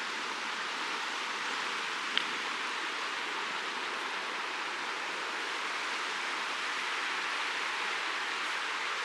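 Steady rushing of a river flowing over stones, an even hiss with no rhythm or pitch. A single short click about two seconds in.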